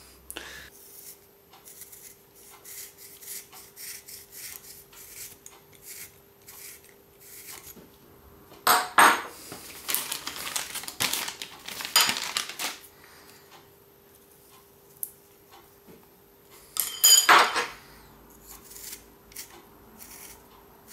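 Steel hand reamer twisted by hand inside the plastic tail-boom socket of a model helicopter, scraping and clicking as it cuts out broken carbon fibre to enlarge the hole. It comes in short strokes with a few louder scraping spells, over a faint steady hum.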